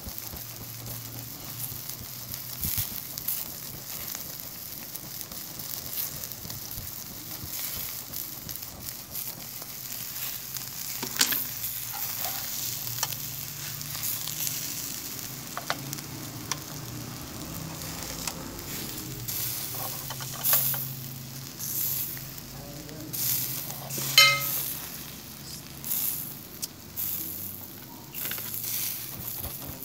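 Mutton liver kebabs on metal skewers sizzling over hot charcoal: a steady hiss with scattered pops and crackles, one louder pop about 24 seconds in.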